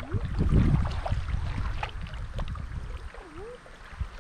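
Double-bladed paddle strokes from a kayak dipping and splashing in calm river water, with a low rumble and a few sharp knocks of paddle and hull.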